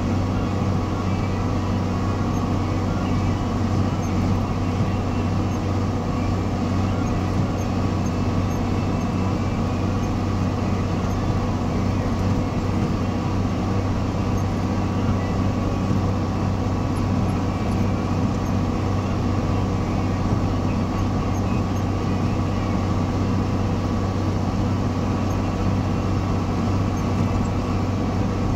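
John Deere-based high-clearance sprayer's diesel engine running steadily under load as the machine drives through the field, a constant drone with no change in pace.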